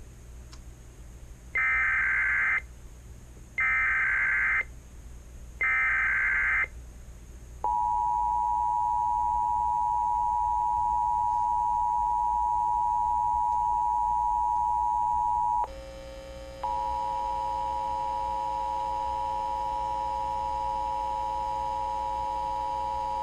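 Emergency Alert System tones: three one-second bursts of the shrill SAME header data, then the long steady two-tone attention signal. About two-thirds of the way through the tone breaks off for a second and comes back with a lower hum beneath it.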